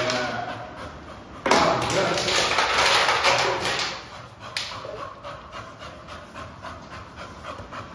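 Empty plastic water bottle crinkling and crackling in a Labrador's mouth as she chews and carries it, loudest for about two and a half seconds starting about a second and a half in, then quieter crackling.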